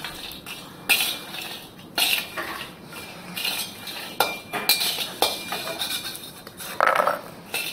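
Perforated metal skimmer scraping and clinking against a metal kadhai in a series of separate strokes while scooping out roasted fox nuts (makhana).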